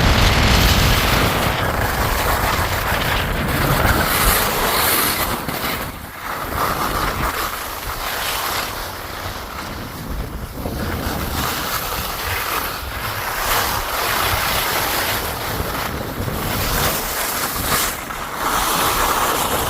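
Wind buffeting the microphone: a steady rushing noise that swells and eases in gusts.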